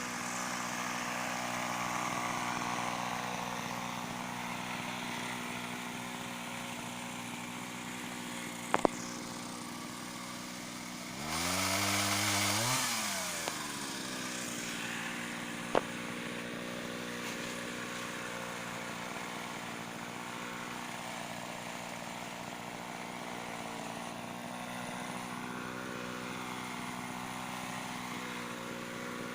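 Small two-stroke Mitsubishi TL26 brush-cutter engine driving a long-reach pole saw, running steadily at low speed. Near the middle it revs up sharply for about two seconds, then falls back. Two sharp clicks come before and after the rev.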